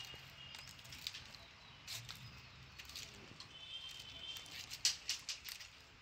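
Quiet rural outdoor ambience: a few short, high chirps over scattered light clicks and rustles.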